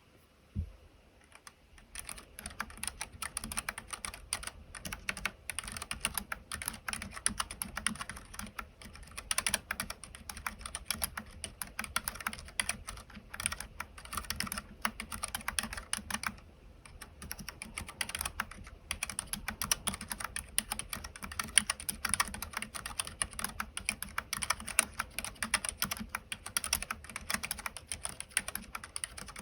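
Continuous typing on a Keychron K3 low-profile wireless mechanical keyboard with low-profile optical White linear switches (30 g), the keystrokes running in a fast, steady stream with a brief pause about halfway through.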